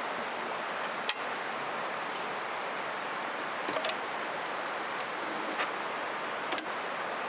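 Steady rushing of a flowing river, with a few sharp clicks about a second in, near the middle and near the end.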